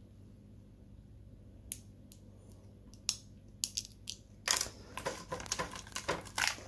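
A few small sharp clicks as a microSD card and its plastic SD adapter are handled. From about four and a half seconds in, a dense run of crackling and crinkling as the torn cardboard packaging is handled.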